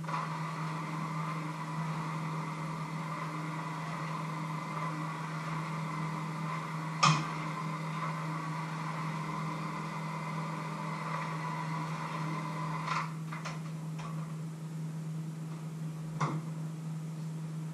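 Electric hand mixer running steadily in a metal bowl, stopping about 13 seconds in. A sharp knock comes about halfway, and a few clicks and taps follow near the end, over a constant low hum.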